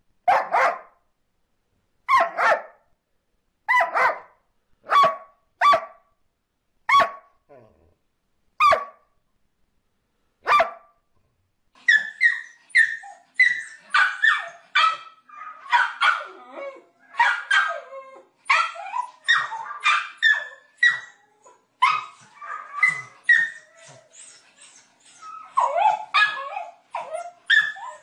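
A black-and-white collie-type dog barks single barks about every one to two seconds, with silence between them. About twelve seconds in, a small white dog takes over with rapid, higher barks, several a second, that go on to the end.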